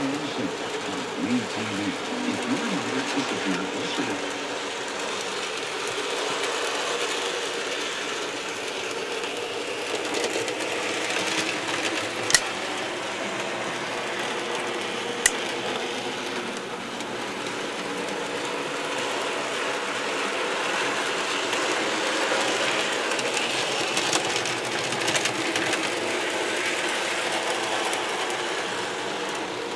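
N gauge model train running around the layout: a steady whir from the small locomotive's electric motor and wheels on the track, with two sharp clicks about 12 and 15 seconds in.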